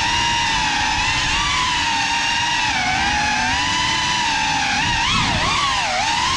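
GEPRC CineLog 35 cinewhoop's brushless motors and ducted propellers on 6S whining. The pitch wavers up and down with throttle and swings quickly around five seconds in, over a rough low rush of propeller wash.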